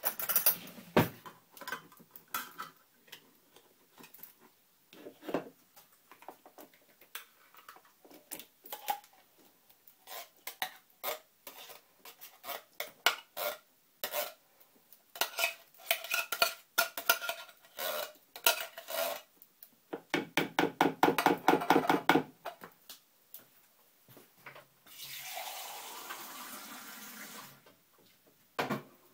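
Metal baked-bean tins being emptied into a plastic bowl: repeated clinks, knocks and scraping of metal against metal and plastic, with a fast run of scrapes about twenty seconds in. A steady hiss lasts a few seconds near the end.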